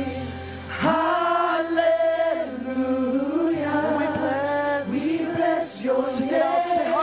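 Worship music: a group of voices singing a slow worship song together over sustained low bass notes, the bass note changing partway through.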